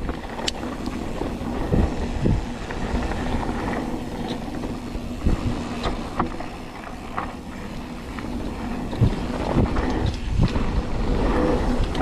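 Mountain bike rolling down a dirt trail: steady tyre noise and wind on the microphone, with short knocks and rattles from the bike every second or two.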